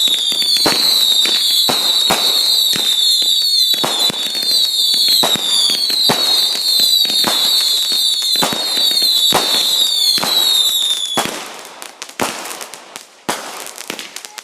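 Fireworks going off: a rapid string of high whistles, each sliding a little down in pitch, over dense sharp pops. About eleven seconds in, the whistling stops and scattered, quieter pops and crackles carry on.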